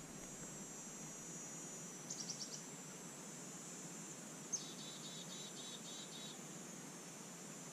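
Evening crickets trilling steadily at a high pitch over a faint low rush of river water. A bird gives a short burst of quick notes about two seconds in, then a sharp note followed by a rapid run of repeated notes lasting nearly two seconds.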